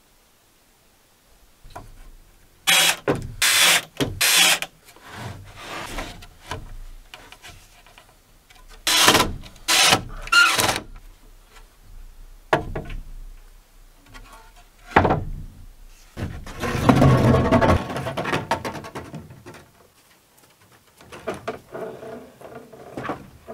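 Timber framing work on a pallet-wood A-frame: wooden boards and rafters knocked into place, in clusters of three sharp wooden knocks, with a longer rough noisy stretch about two-thirds of the way through.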